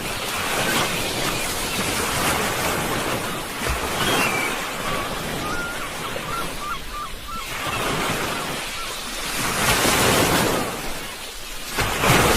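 Sea waves breaking and washing on the shore in repeated swells, loudest about ten seconds in and again near the end.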